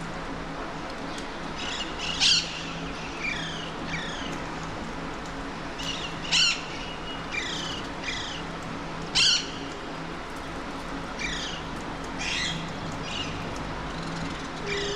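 Alexandrine parakeets squawking: short harsh calls, three loud ones a few seconds apart with quieter calls in between, over a steady low background hum.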